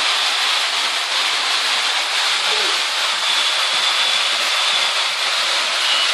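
Battery-powered toy train running on a plastic elevated track: a steady whirring hiss of its small motor and wheels, with a faint high whine.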